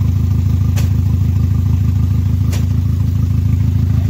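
Chevrolet Spark's engine idling with a heavy misfire, running with an uneven low pulse and two sharp ticks. The misfire later traces to the ignition.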